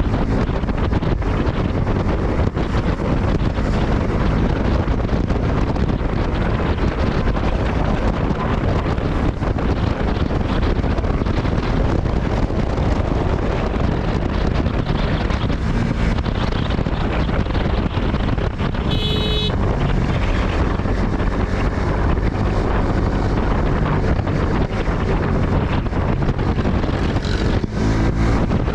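Wind buffeting the microphone of a moving Suzuki Gixxer 250 motorcycle, with its single-cylinder engine running steadily underneath. A brief high tone sounds for about half a second two-thirds of the way through.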